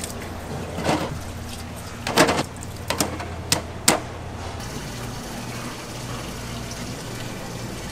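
Kitchen clatter: about five sharp knocks of kitchenware over a steady low hum, the hum dropping away about halfway through.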